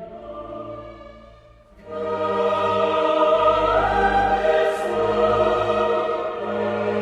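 Background music with sustained choir-like voices and orchestra, quiet at first and swelling up loudly about two seconds in.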